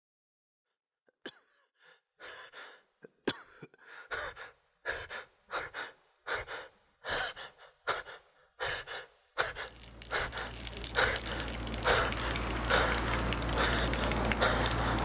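A person breathing hard in quick, rhythmic gasps, about one breath every two-thirds of a second. About nine seconds in, a steady low rumble comes in underneath and the gasping goes on over it.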